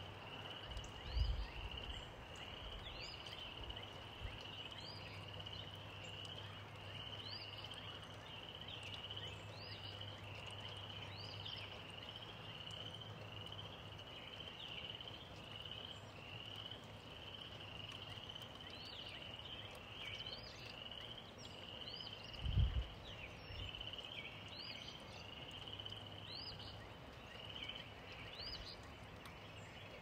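Gentle rain with a steady outdoor chorus of small calling animals: pulsed chirps repeating about three times every two seconds, with higher rising chirps every second or two. A brief low thump comes about a second in, and a louder one near the end.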